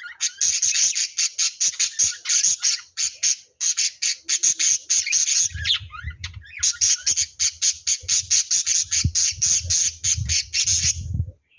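Lovebirds squawking in a fast string of shrill, chattering chirps at about five or six a second, with a brief pause near the middle and a stop just before the end.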